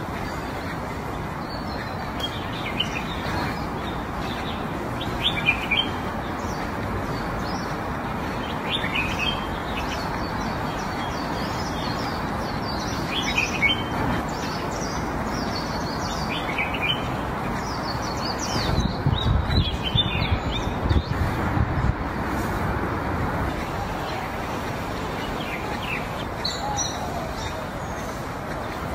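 Small birds chirping and tweeting in short scattered calls over a steady outdoor background hiss. About two-thirds of the way in, a brief run of low thumps is louder than the birds.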